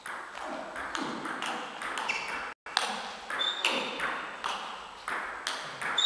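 Table tennis rally: a celluloid/plastic ball struck by rackets and bouncing on the table, a quick run of sharp clicks about two to three a second.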